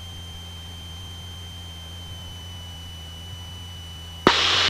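Cessna 172 cabin drone: a steady low engine and propeller hum with a steady high-pitched whine over it. About four seconds in, a sudden click opens a short, loud burst of hiss.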